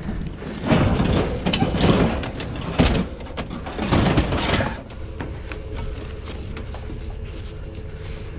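Loud, irregular knocking and scraping as scavenged items are shifted and loaded, for about four seconds. After that comes a steady, quieter vehicle engine hum.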